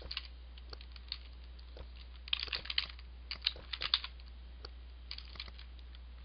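Computer keyboard typing: irregular key clicks in two short quick runs with sparser single strokes between, over a steady low hum.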